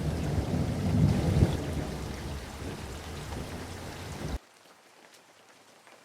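Rain falling, with a loud deep rumble under the hiss that fades over a few seconds. A little over four seconds in, the sound cuts off abruptly, leaving only faint rain hiss.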